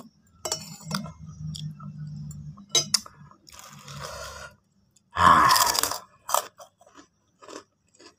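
Close-miked mouth sounds of a person eating spicy noodle soup: chewing with wet smacks and clicks over a low steady hum in the first half. About five seconds in comes one loud breathy rush of air, lasting under a second, then a few more chewing clicks.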